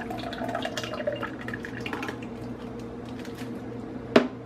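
Thick coconut-milk mixture pouring from a plastic measuring cup into a plastic bag, over a steady low hum. About four seconds in, a sharp knock as a metal ladle strikes the enamel pot.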